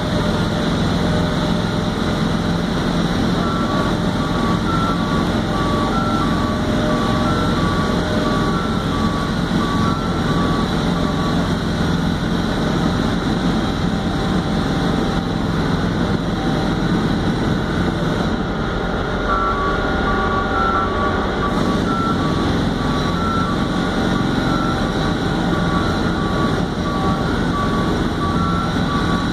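Telescopic boom lift's engine running steadily while its travel alarm beeps in two alternating tones, in two spells: from a few seconds in until about a third of the way through, and again from about two-thirds of the way through to the end. The alarm sounds as the machine is driven down off a trailer.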